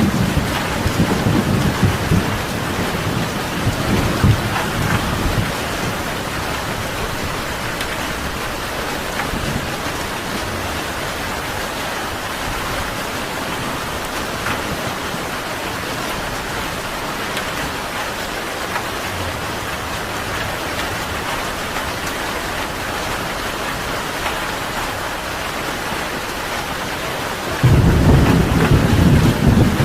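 Steady heavy rain. Thunder rumbles low in the first few seconds and dies away, and a loud rumble of thunder starts suddenly near the end.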